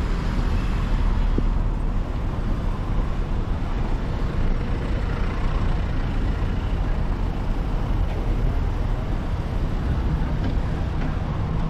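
Steady urban road traffic: cars and vans idling and moving past close by, a continuous low rumble.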